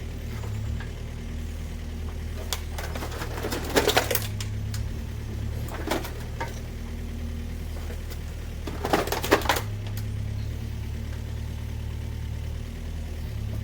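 Clattering metallic knocks and rattles, in two short clusters about four and nine seconds in, with a lighter knock near six seconds, over a steady low hum.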